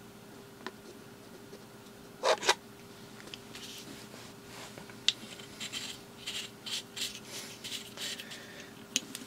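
Hands handling a can of brake fluid and its cap on a carpeted desk: two sharp knocks a little after two seconds in, then scattered light scratching and rubbing, over a faint steady hum.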